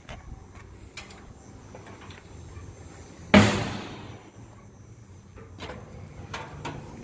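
Heavy steel lid of an offset smoker's cooking chamber being opened, with one loud metal clunk about three seconds in that rings briefly, and a few lighter clicks of metal handles and hinges.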